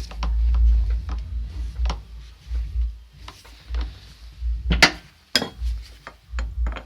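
Wrench working the adjuster on a Toyota Corolla 120 steering rack: scattered clicks and knocks, with two sharp strikes about five seconds in, as the adjustment is loosened and set before locking.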